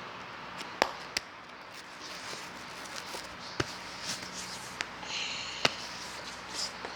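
Sticky clay-and-lotion slime being poked and squeezed by hand, giving a few sharp clicks and pops and a short squelchy hiss.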